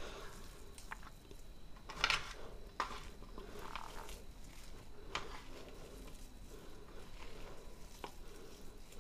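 A hand squeezing and kneading a mash of boiled Indian olives and spices in a steel plate: soft, uneven squelching with a few light clicks against the metal, the sharpest about two seconds in and again around five seconds.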